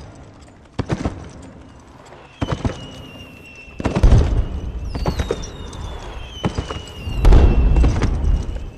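Fireworks: thin whistles of rising shells that slowly fall in pitch, and deep booms of shells bursting about four seconds in and again about seven seconds in.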